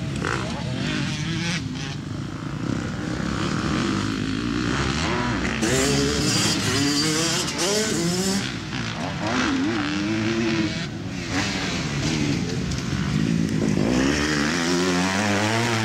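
Off-road dirt bike engines revving on a dirt track. The pitch rises and falls again and again as the throttle is worked, with a run of quick rising revs near the end.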